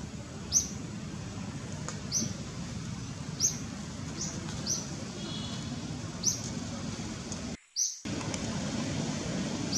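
Short, high, falling chirps repeat at uneven gaps of about a second, over a steady low outdoor rumble. All sound drops out briefly near the end.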